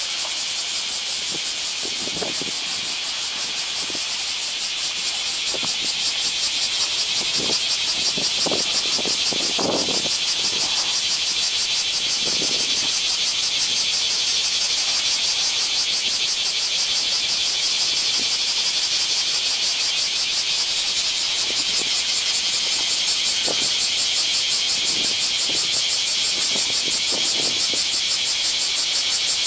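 Asian elephant splashing in a pool, its trunk slapping and sloshing the water in scattered short splashes, several close together a few seconds in and more near the end. A steady high hiss runs underneath throughout.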